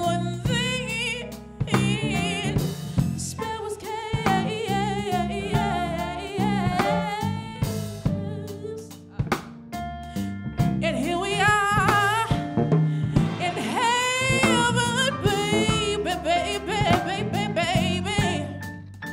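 Woman singing live in a soulful style, her voice wavering in a wide vibrato and sliding through runs, over a band with a drum kit and electric guitar.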